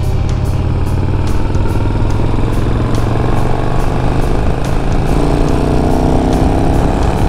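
Yamaha XV950 Bolt's air-cooled V-twin on its stock exhaust, running on the road and steady at first, then rising in pitch as the bike accelerates from about three seconds in, climbing again from about five seconds. Wind rushes over the microphone.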